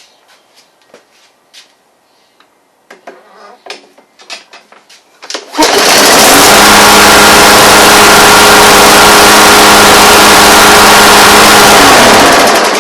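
A few light clicks and knocks, then a Briggs & Stratton 140cc single-cylinder lawnmower engine starts about halfway through and runs loud and steady at one speed on its freshly fitted carburetor. Near the end it is shut off and winds down.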